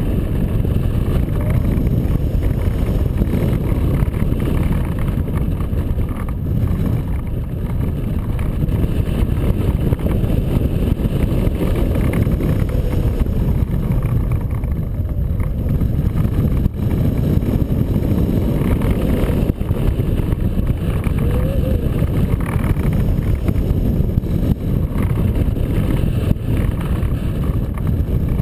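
Wind rushing over a camera microphone mounted on a hang glider in flight: a loud, steady low rumble of airflow buffeting the mic.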